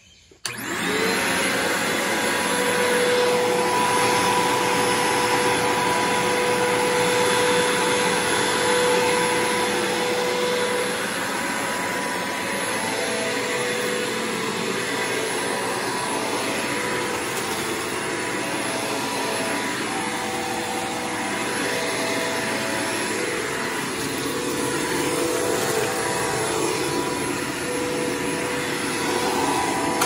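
Bissell PowerForce bagged upright vacuum cleaner switched on about half a second in, its motor whine rising briefly as it spins up, then running steadily over carpet.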